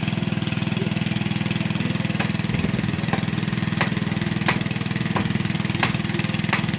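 Small engine-driven water pump running steadily, with a series of sharp knocks, about one every two-thirds of a second from about two seconds in, as a wooden plank is struck on top of the PVC well-casing pipe to drive it down.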